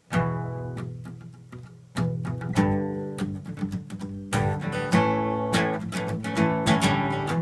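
Cutaway acoustic guitar strummed solo as the opening of a country song: a first chord rings out and fades, a second is struck about two seconds in, and from about four and a half seconds in the strumming turns steady and rhythmic.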